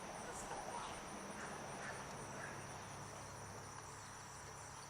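Faint outdoor ambience dominated by the steady high-pitched trilling of insects.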